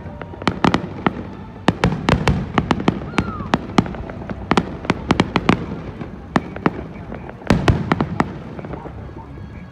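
Fireworks show: a rapid, irregular run of sharp bangs and pops from bursting aerial shells. The bangs come thickest in the first half and again in a cluster about three quarters of the way in, then thin out near the end.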